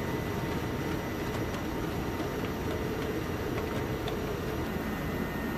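Steady noise of an MV-22B Osprey tiltrotor's engines and rotors, heard inside the cargo cabin with the rear ramp open, with a thin steady whine running through it.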